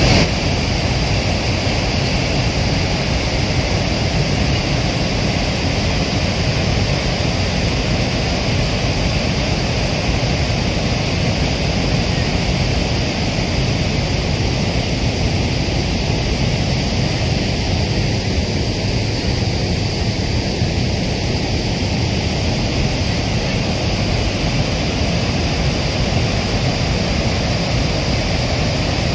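Floodwater pouring through a dam's row of open spillway shutters and crashing into the river below, a steady rushing at constant loudness. The flood release is running with the reservoir full.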